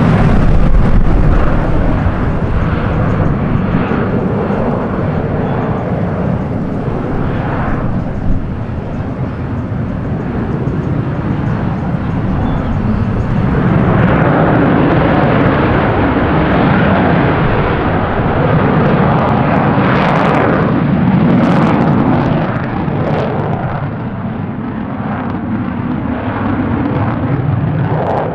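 Loud jet aircraft engine noise. It is heavy at first, eases for several seconds, then swells again with a few sharp crackles about two-thirds through, before easing off near the end.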